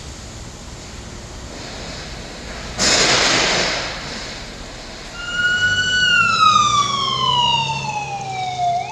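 Ambulance electronic siren driven by a Feniex 4200 DataLink controller, starting about five seconds in: a wail that holds its pitch, falls slowly, then starts rising again near the end. Before it, a sudden hiss lasting about a second.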